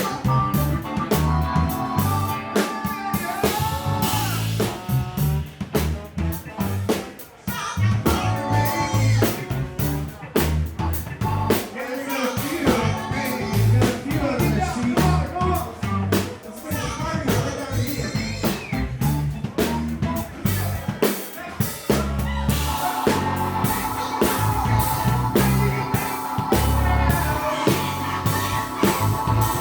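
Live funk band playing: drum kit and bass groove with horns, the horns holding long notes together in the last few seconds.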